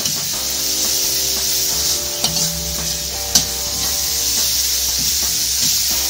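Food frying in a pan with a steady sizzle, and two sharp clicks, one a little past two seconds in and one about three and a half seconds in.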